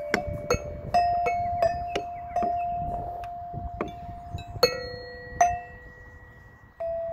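Outdoor playground xylophone with coloured metal bars struck with mallets: single notes at an uneven pace, each ringing on for a second or more, with a pause near the end before one last note.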